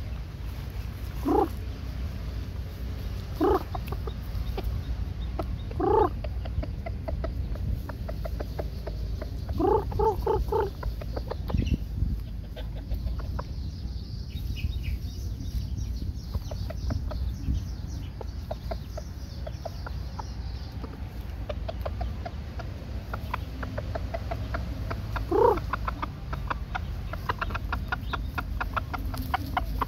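Rooster clucking in short single calls, a handful spread out, with a quick run of three or four about ten seconds in, over a steady low rumble.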